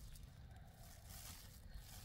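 Near silence: faint background noise with a low rumble.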